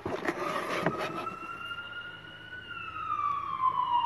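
An emergency-vehicle siren wailing, its pitch slowly rising and then falling. In the first second, knocks and cardboard rustling as a Bakelite tabletop radio is lifted out of a box.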